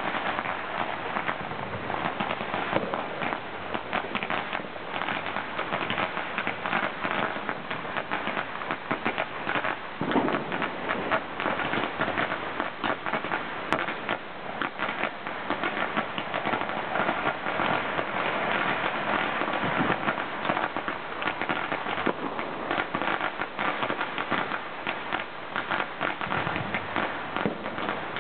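Many strings of Spring Festival firecrackers going off across the neighbourhood below, merging into a continuous, dense crackle of overlapping bangs with no pause.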